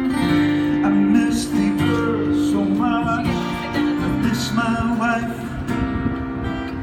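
Acoustic guitar music: strummed chords over a held low note, with a wavering melody line on top.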